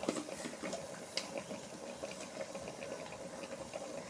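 Faint crackling sizzle of oil, onions and tomatoes cooking in an aluminium pressure-cooker pot, with a few light clicks.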